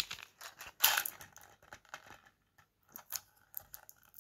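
Fingers handling a small round metal tin and picking at the sticky tape sealing its lid: a run of light clicks and scratches, the loudest about a second in.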